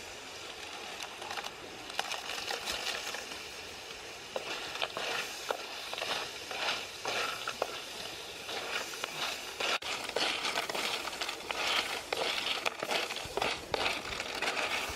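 Chili paste sizzling in a metal wok. A few seconds in, cockles in their shells are stirred in, with many sharp clicks of shell on metal over the steady sizzle.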